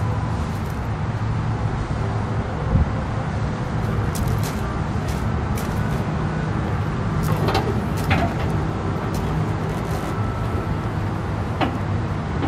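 Diesel engine of a Peterbilt 340 truck idling steadily, with a sharp knock about three seconds in and creaking and rattling near the middle as its tilt hood is unlatched and swung open.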